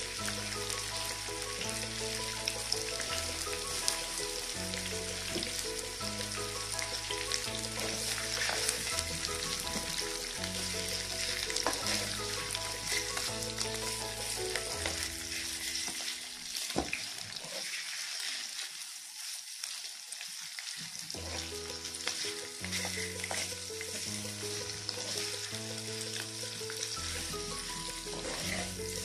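Camel sausages sizzling as they fry in oil and ghee in a pan, being stirred and turned with a wooden spatula. Background music plays over the sizzle and drops out for a few seconds past the middle.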